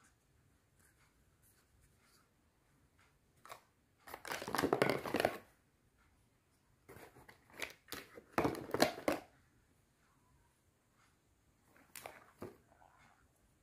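Hard plastic baby-bottle parts (a clear cap and a green screw ring) being handled and fitted together, rubbing, scraping and clicking. The sound comes in two longer bursts in the middle, with a short one near the end.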